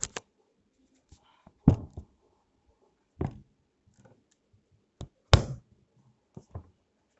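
Irregular knocks and clicks, about seven in all, spaced unevenly with quiet between them; the loudest come about two seconds in and a little after five seconds in.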